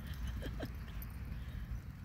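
A dog at play giving two short faint yips close together about half a second in, over a steady low rumble.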